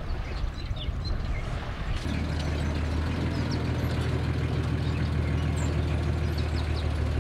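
Engine of an old 4x4 pickup truck running steadily at low speed, its low hum growing louder and steadier about two seconds in as it pulls up close.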